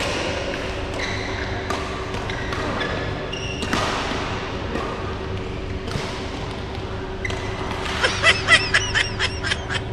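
Badminton rally in a large hall: sharp racket strikes on the shuttlecock every second or so, then a quick run of sneaker squeaks on the court floor near the end, with a steady hum underneath.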